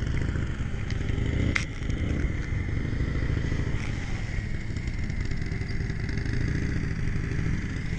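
A motorcycle engine runs steadily at low speed as the bike is ridden slowly, with a single sharp click about a second and a half in.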